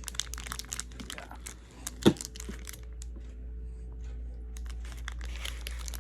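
A wrapper crinkling and rustling close to the microphone in quick, irregular crackles, with one loud thump about two seconds in.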